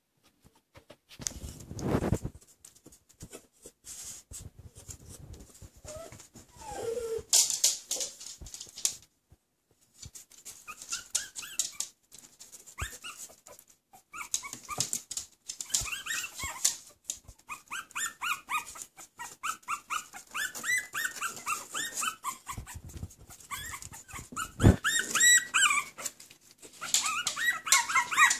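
Newborn puppies squeaking and whimpering: many short, high-pitched cries rising and falling in pitch, starting about a third of the way in and coming thicker near the end. Earlier there are a couple of dull thumps and some rustling of the towel bedding.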